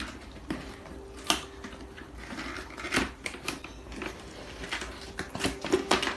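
Cardboard box being handled and opened by hand: scattered scrapes, taps and clicks of the cardboard lid and flaps, the sharpest about a second in, around three seconds and near the end.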